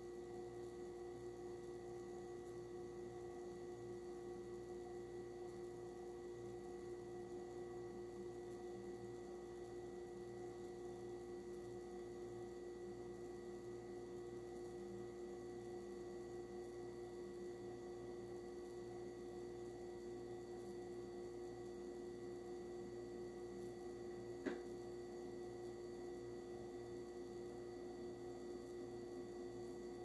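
Oven running while baking: a quiet, steady electrical hum made of several held tones. A single sharp click comes about 24 seconds in.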